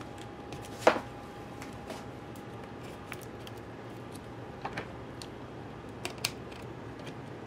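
Sharp little clicks and taps of small plastic and metal parts being handled on a laptop's logic board as its cable connectors are seated, the loudest about a second in, then single clicks and two quick pairs, over a faint steady hum.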